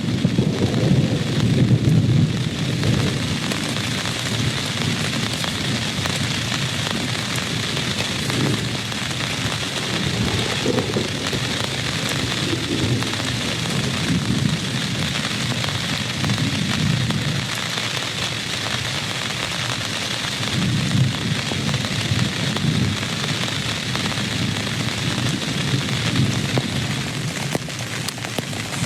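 Steady heavy rain with low rumbles of thunder swelling and fading several times, the strongest in the first few seconds.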